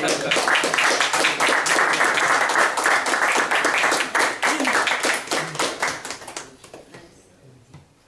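Audience applauding: dense clapping that thins out and dies away about six to seven seconds in.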